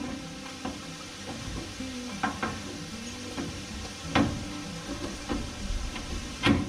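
Metal knocks and clinks as an upper control arm's ball joint stud is worked into the steering spindle, metal on metal. There are a few sharp knocks: a pair about two seconds in, a louder one about four seconds in, and the loudest near the end.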